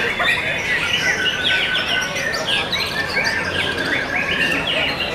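White-rumped shamas (murai batu) singing from their cages, several birds at once in a dense chorus of rapid, overlapping chirps and whistles.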